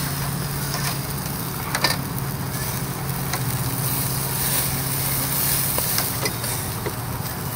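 Beef burger patties sizzling on a charcoal grill, with a steady hiss and a few sharp pops as fat drips onto the hot coals. A steady low hum runs underneath.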